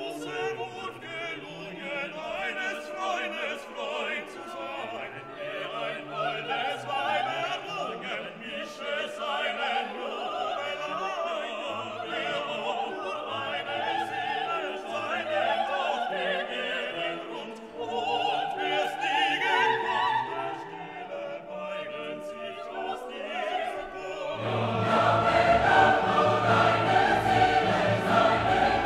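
Background classical music: operatic singing over an orchestra, which swells fuller and louder with a bass part entering about 24 seconds in.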